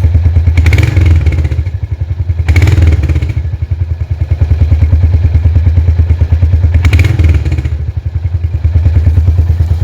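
Royal Enfield Hunter 350's 349 cc single-cylinder engine running through its stock exhaust, idling with an even low beat. It is revved briefly three times: about a second in, near three seconds, and near seven seconds.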